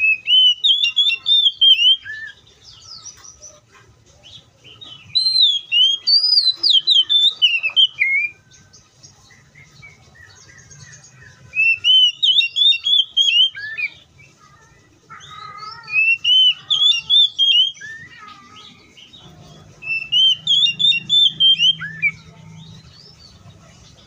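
Oriental magpie-robin singing: five loud phrases, each a quick run of high whistled notes lasting two to three seconds, with short pauses between them.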